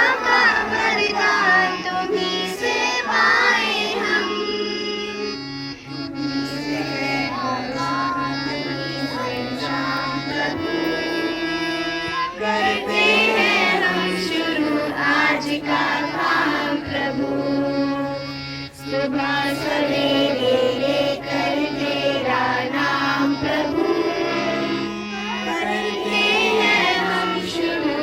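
A children's school music band performing a song: young voices singing over held instrumental chords that change in steps.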